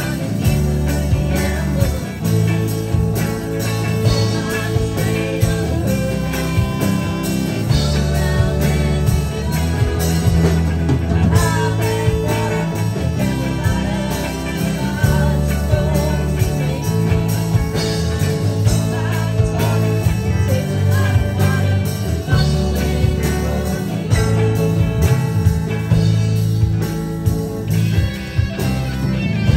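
Live rock band playing an instrumental break: electric guitars over bass and drums, with flute and saxophone.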